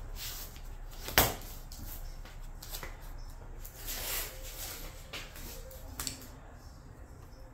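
1.5-inch blue painter's tape being pulled off the roll in short rasping rips and pressed onto the hood, with one sharp tap a little over a second in.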